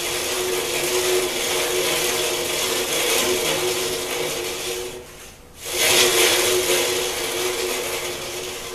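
Delta bandsaw's wheels and blade spun by hand, whirring with a steady hum as they coast. The whir dies down about five seconds in, picks up again sharply just before six seconds with another spin, then slowly winds down. The blade is being run around to check its tracking on the rebuilt wheels.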